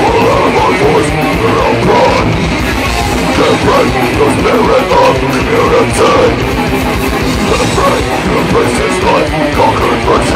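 Live heavy metal band playing loud: distorted electric guitars and a drum kit, with a vocal into a handheld microphone.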